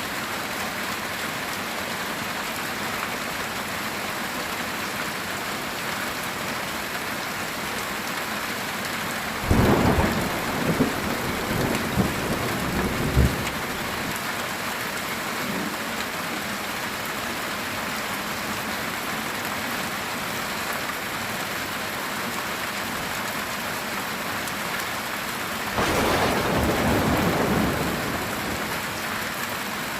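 Steady heavy rain falling on a metal tin roof, with thunder twice. About a third of the way in comes a sudden sharp crack followed by several rumbling peals over a few seconds. A second, smoother roll of thunder comes near the end.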